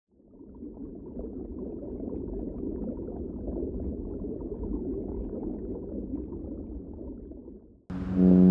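Underwater sound: a steady bubbling, rumbling wash of water fades in and runs until it cuts off suddenly near the end. A loud, deep ship's horn blast from a large car ferry then starts abruptly.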